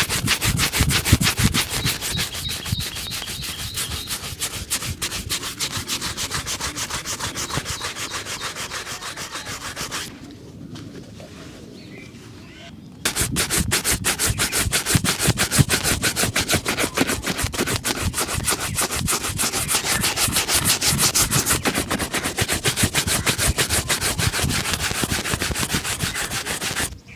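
A leather shoe being buffed during a shoe shine, with rapid back-and-forth rubbing strokes. The strokes stop for about three seconds in the middle, then start again just as fast until near the end.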